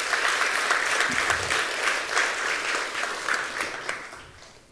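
Audience applauding: a dense patter of many hands clapping that dies away over the last second or so.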